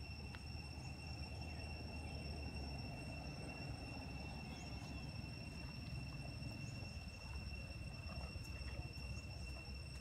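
Insects trilling in one steady, unbroken high tone over a low rumble, with a few faint short chirps and ticks scattered through.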